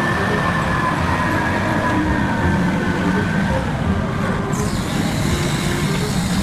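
Large Volvo wheel loader's diesel engine running steadily under load with a deep rumble, a faint high whine over it in the first few seconds, as it lifts a full bucket of earth over a dump truck.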